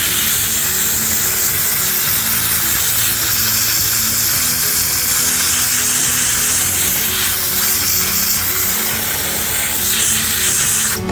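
Compressed air blowing sanding dust off a carved and sanded wooden sign: a steady loud hiss that cuts off suddenly near the end.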